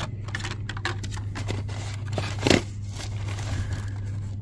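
Blister-packed die-cast toy cars being sorted by hand: scattered plastic clicks and card scraping over a steady low hum, with one louder clack about two and a half seconds in.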